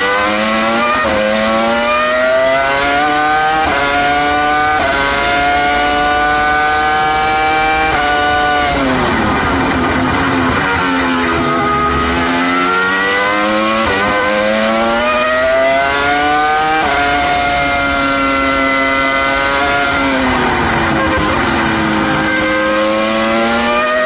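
Williams BMW 3.0-litre V10 Formula 1 engine at racing revs, heard from the onboard camera. It climbs in pitch through the gears with a sudden drop at each upshift, and twice falls away as the car brakes and downshifts for a corner before climbing again.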